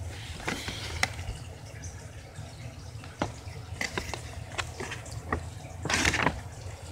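Handling noise from a cardboard model-airplane box being turned over: scattered light clicks and rustles over a low steady hum, with a longer rustle about six seconds in.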